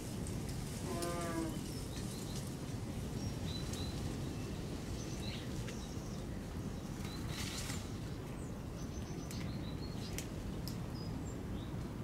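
Sparrows giving short, scattered chirps over a steady low rumble. About a second in comes a brief low call with several overtones, and around seven seconds a short rustling burst.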